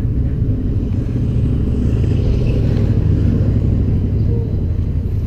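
Motorcycle engine idling: a steady, loud low rumble.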